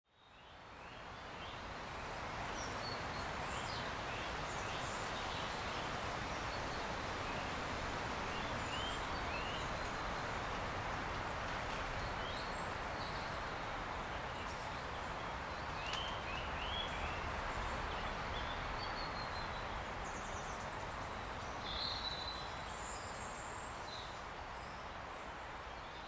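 Forest ambience: a steady rushing background noise, fading in over the first two seconds, with small birds chirping on and off.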